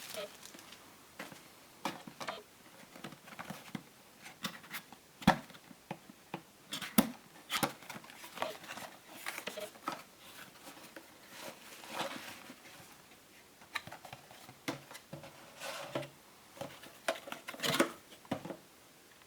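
Dashcam box being unpacked by hand: cardboard and plastic packaging rustling and crinkling, with scattered clicks and knocks as the contents are lifted out. The sharpest click comes about five seconds in.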